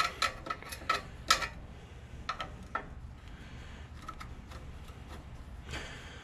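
Light metallic clicks and taps of a screwdriver working loose the slotted-head bolts that hold the carburetor to a small lawn-tractor engine. There are several clicks in the first three seconds and a few more near the end.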